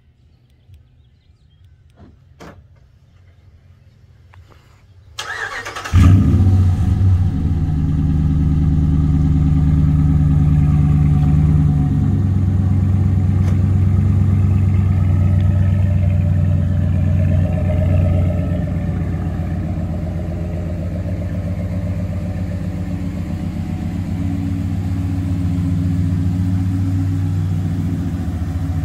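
2014 Ram Sport's HEMI V8 cranked by its starter about five seconds in, catching within a second with a loud flare of revs. It then settles to a steady idle heard at the dual exhaust tips, easing a little quieter partway through.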